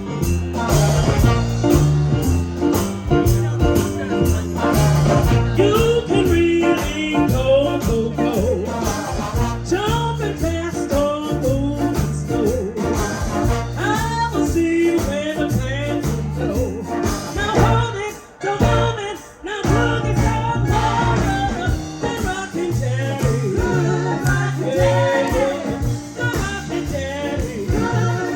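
Live blues band playing an up-tempo number: a steady bass line under a singing and instrumental melody, with a brief stop about two-thirds of the way through.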